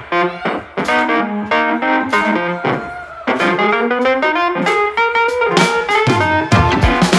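Live band playing an instrumental passage of a soul-blues song, with guitar and keyboard notes and gliding pitch bends in the middle. The drums come in hard near the end.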